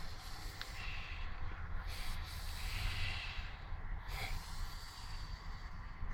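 Strong gusty wind around a truck: a continuous low rumble with hissing gusts that swell and fade a couple of times.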